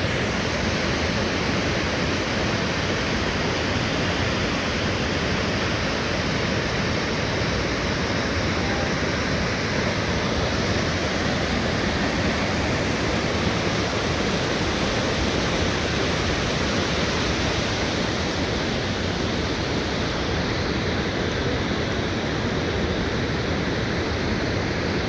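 Krimml Waterfalls thundering: a steady, unbroken rush of falling water.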